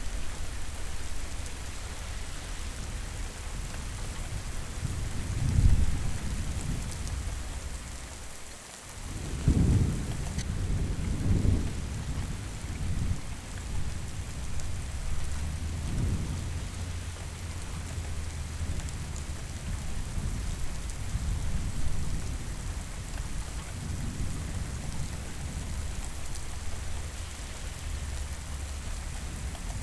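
Steady rain falling, with thunder rumbling low several times; the loudest rolls of thunder come about five seconds in and again from about nine to twelve seconds in, with a brief lull just before.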